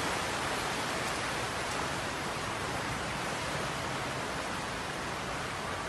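Floodwater rushing across a building's lobby floor: a steady rushing noise that holds even throughout.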